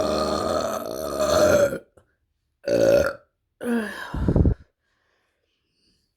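A woman burping: one long, drawn-out burp that stops a little under two seconds in, then two shorter burps, the last with a heavier low end.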